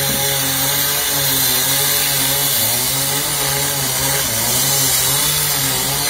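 Two-stroke chainsaw running steadily, its engine note wavering slightly in pitch now and then.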